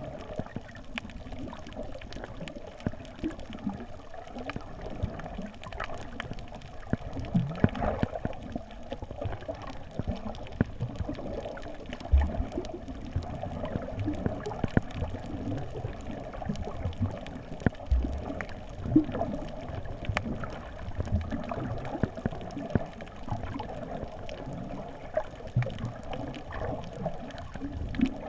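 Quadcopter in flight heard through a GoPro's housing: a muffled, wavering motor hum with wind buffeting and scattered small knocks.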